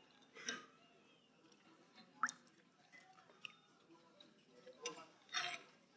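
A person chewing food close to the phone's microphone. Faint mouth sounds are broken by a few short, sharp smacks or crunches: about half a second in, just after two seconds, and twice near the end.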